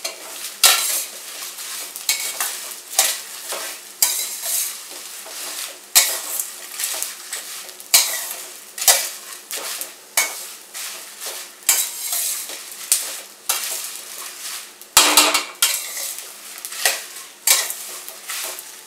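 Metal spatula scraping and stirring whole spices around a stainless steel wok in repeated strokes, about one a second, with the seeds rattling and a sizzle underneath. These are the spices being roasted on low heat in a little oil for a black spice blend.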